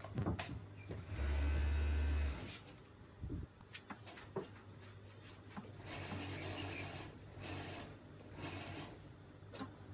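Industrial overlock sewing machine running briefly, about a second in, for roughly a second of stitching over a low steady motor hum. Later come softer rustles of fabric being handled.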